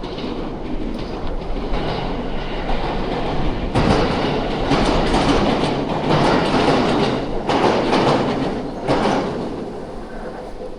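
A train passing close by: a loud rumble builds about a third of the way in, carries a run of knocks from the wheels through the middle, and fades near the end.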